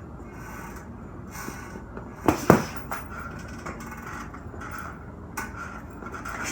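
Two punches thudding into a heavy punching bag in quick succession about two seconds in, a one-two combination thrown for power, followed by a few lighter knocks.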